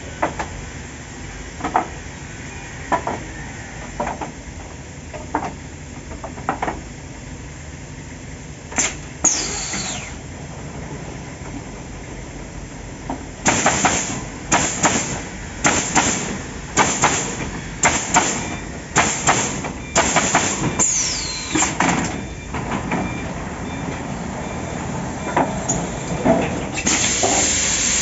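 Automatic stringer pallet nailing machine at work: sharp knocks about once a second over a steady machine noise. From about halfway there is a fast run of short, loud bursts of hissing air, about one and a half a second, as the pneumatic nailing heads fire.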